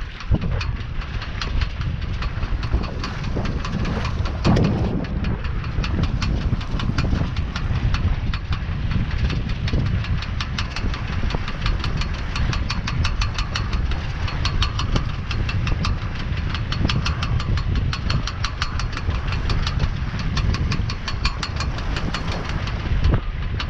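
Wind buffeting the microphone of a camera on a small sailboat under sail, with a rapid, even ticking or rattling running through it that is clearer in the second half.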